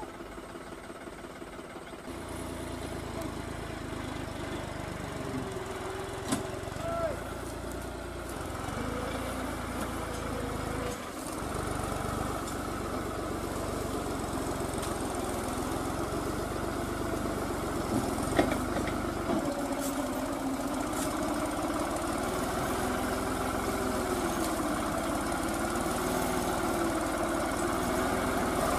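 Diesel farm tractor engine running under load as it hauls a loaded sugarcane trailer up a muddy track, its note rising and falling and growing steadily louder as it draws near. A few short knocks stand out now and then.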